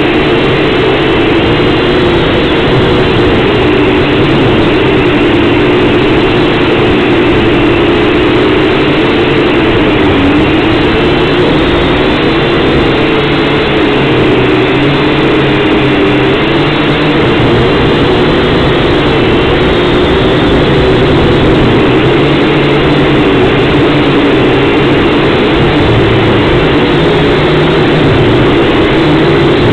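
Syma X5C-1 quadcopter's small brushed motors and propellers buzzing steadily at close range, heard through its own onboard camera, the pitch wavering up and down as the throttle shifts in flight.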